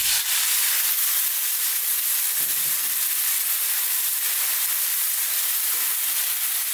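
Potato, cauliflower and tomato sizzling in a hot pan on high heat as a dash of water hits it and boils off as steam: a steady, even hiss.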